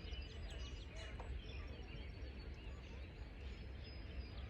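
Outdoor ambience of small birds chirping over a steady low rumble of wind on the microphone.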